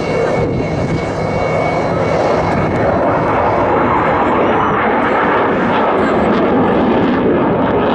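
Fighter jet's engine noise during an air display: a loud, steady roar.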